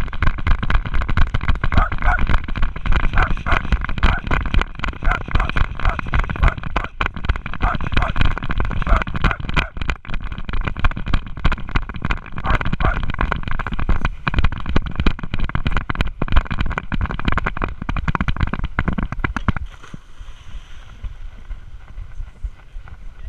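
A camera strapped to a running dog's back, jostled with every stride: rapid, irregular knocking and rustling with wind buffeting the microphone. About twenty seconds in it drops to a much quieter rustle as the dog slows.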